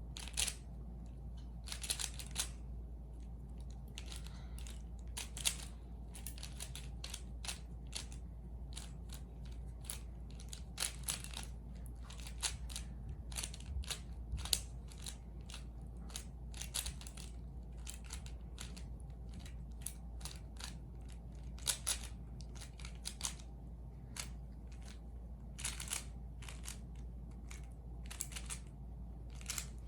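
A 3x3 Rubik's cube being turned by hand during a solve: irregular quick clicks and plastic rasps as the layers turn, with short pauses between moves.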